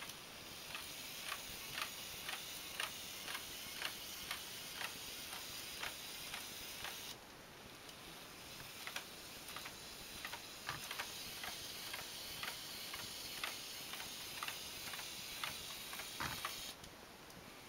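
Six-legged LEGO Mindstorms walking robot stepping along, its plastic legs and gearing clicking in a steady rhythm of about two clicks a second over a steady hiss.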